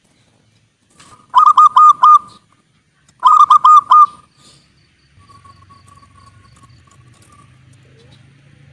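Zebra dove (perkutut) singing: two loud phrases of quick cooing notes, each about a second long and about two seconds apart, followed by a fainter, longer run of notes. A faint low hum comes in about halfway through.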